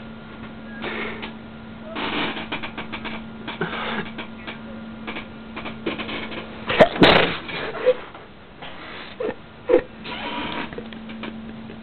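A sharp sneeze about seven seconds in, the loudest sound, amid short breathy bursts of noise before and after it. A few brief squeaky blips follow the sneeze, over a faint steady hum.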